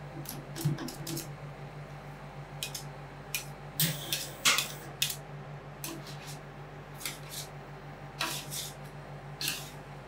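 Metal ice cream spatulas clacking and scraping irregularly on a steel cold plate as the chocolate bar is chopped into the ice cream base, over a steady low hum.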